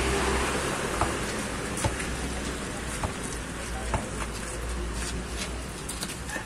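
A basketball bouncing on concrete, a sharp knock about once a second, over a steady outdoor hiss.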